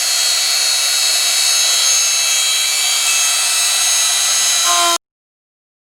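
Power tool running steadily with a high whine, cut off suddenly about five seconds in.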